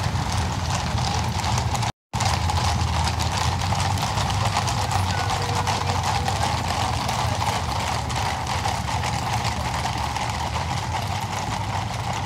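Many cavalry horses' hooves clip-clopping on a cobbled avenue as a mounted squadron of the Garde républicaine passes, a dense, continuous patter of strikes over a steady low rumble. The sound cuts out for a split second about two seconds in.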